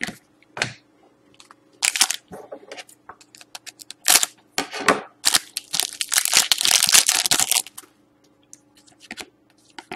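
Foil wrapper of a Panini Select hockey card pack crinkling as it is handled, then cut open with scissors: a dense run of crackling from about five seconds in that lasts a couple of seconds. Trading cards are handled with light clicks before and after.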